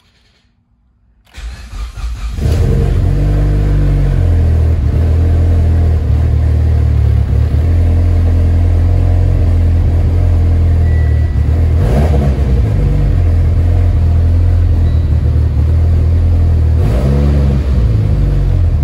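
Mitsubishi Lancer Evolution X's turbocharged 2.0-litre four-cylinder engine cranked by the starter about a second in, catching almost at once and settling into a steady idle, its pitch rising and falling briefly twice later on. The engine is running with its air-fuel ratio swinging lean, which the owner puts down to the tune.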